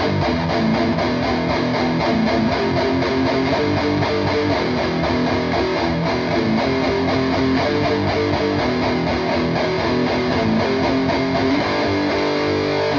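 PRS McCarty 594 electric guitar with Seymour Duncan pickups played continuously through a PRS Archon 50 tube amp head and a cabinet loaded with Celestion Vintage 30 speakers. A steady run of notes and chords, evenly loud throughout.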